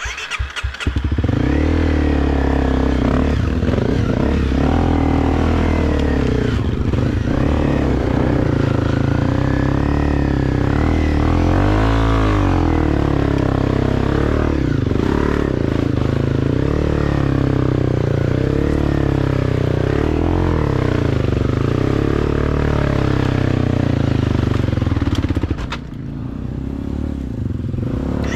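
Off-road motorcycle engine running hard under load, its revs rising and falling as the bike works up a steep trail climb. It comes in sharply about half a second in and eases briefly near the end.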